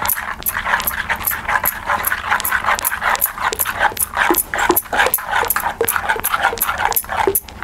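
Spoon stirring thick ragi (finger millet) batter in a steel bowl: quick, even swishing and scraping strokes as soda is mixed in.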